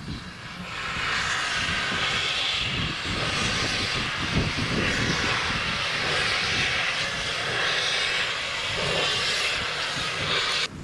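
BR Standard Class 4 2-6-4T steam locomotive blowing steam from its open cylinder drain cocks: a loud, steady hiss that swells in about a second in and stops suddenly at the end, over a low rumble from the engine.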